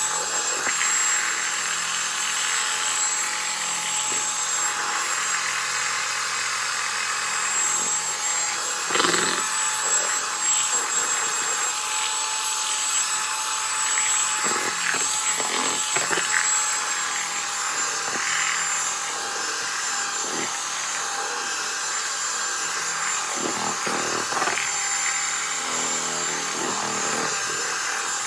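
Electric hand mixer running steadily with a constant motor whine as its beaters churn soured milk in a plastic basin. Occasional knocks and rattles come through, a few between about 9 and 16 seconds in and one near 24 seconds.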